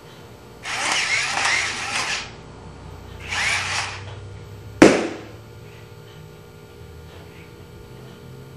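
Attacknid toy robot's gear motors whirring in two short bursts as it crawls, then a single sharp pop about five seconds in as a balloon is burst by its laser.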